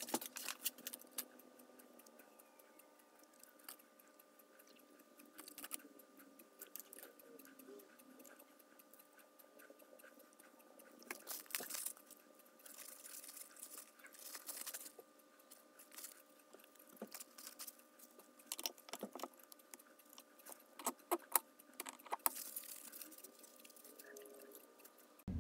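Faint scattered clicks, taps and short rustles from hands handling small metal parts and tools at a workbench, over a faint steady hum.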